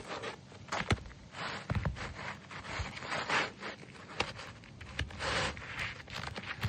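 Asphalt roof shingles being scraped and shuffled by hand during a repair attempt: repeated short rasps with sharp taps and clicks in between.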